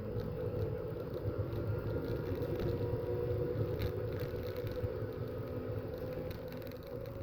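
Race car engine running steadily, heard as a dull low rumble through a poor, muffled recording.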